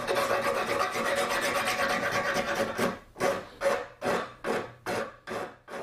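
Hand file scraping over the horn-capped tip of a yew bow limb, rounding off its edges: quick continuous rasping for about three seconds, then separate, slower strokes, about two a second.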